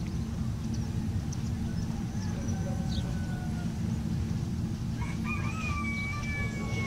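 A rooster crowing: one long call starting about five seconds in, slightly falling at the end, with fainter calls before it. A steady low rumble runs underneath.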